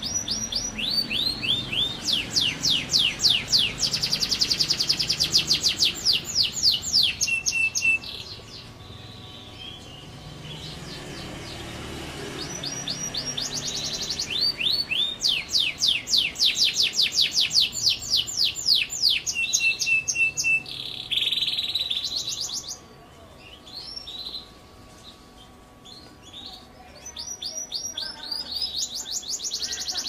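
Local-bred domestic canary singing long, fast trilling phrases: rapid runs of high notes, broken by a few pauses of several seconds between bouts.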